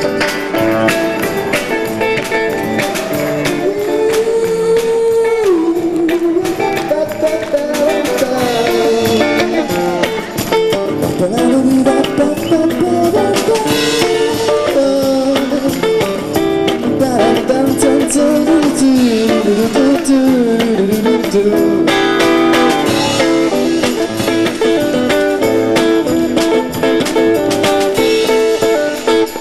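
Live rock band playing an instrumental passage: a lead line of bending, sliding notes over strummed guitar chords and drums.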